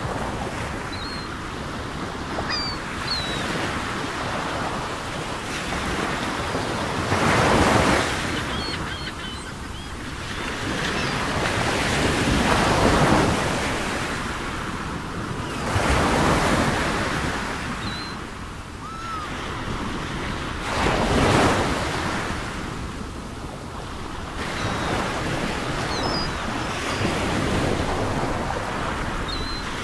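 Ocean surf: waves washing in and drawing back, swelling loudly every few seconds. Faint short high chirps, like distant bird calls, are scattered through it.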